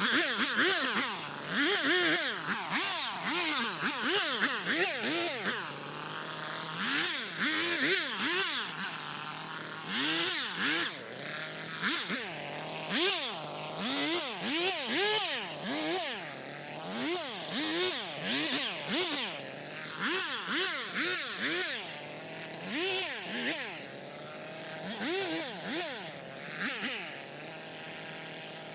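Stihl MS250 two-stroke chainsaw revving up and falling back again and again, about once a second.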